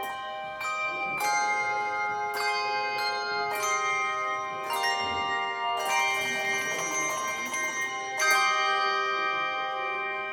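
Handbell choir ringing chords of handbells, struck about once a second, each chord ringing on into the next. A shimmering stretch about six seconds in leads to a loud chord about eight seconds in, which is left to ring.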